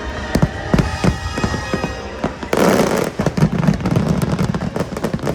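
Fireworks going off over music: several sharp bangs in the first two seconds, then a dense burst of crackling about two and a half seconds in, followed by rapid popping.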